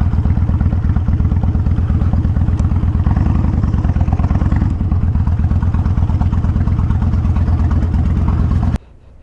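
Kawasaki Vulcan 1500 V-twin motorcycle engine running with a rapid, even low pulsing, heard loud close to the helmet. The sound stops abruptly near the end.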